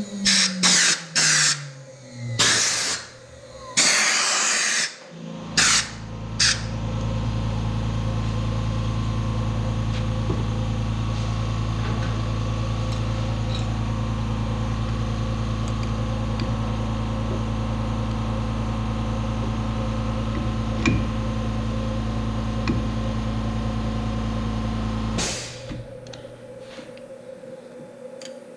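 Several short blasts of air blowing wood chips off a freshly cut end-grain larch bowl blank. Then a steady motor hum for about twenty seconds that stops abruptly near the end.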